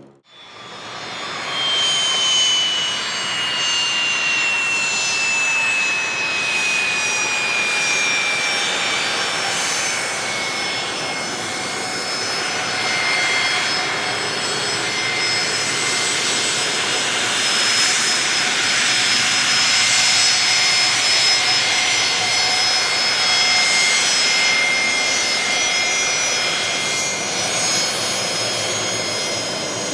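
Business jet's turbofan engines running loud and close, with a high whine that falls in pitch over the first ten seconds and then holds steady.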